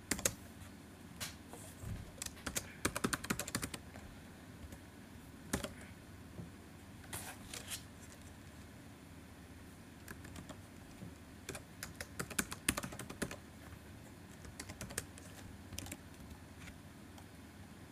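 Typing on a computer keyboard: short runs of keystrokes separated by pauses.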